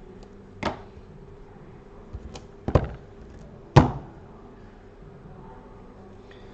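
Three sharp clicks or taps of small hand tools and tape being handled on a work desk, the loudest a little under four seconds in, with a few lighter ticks between them, over a faint steady hum.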